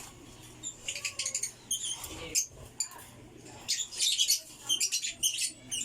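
African lovebird chirping: several clusters of rapid, shrill, high-pitched calls with short pauses between.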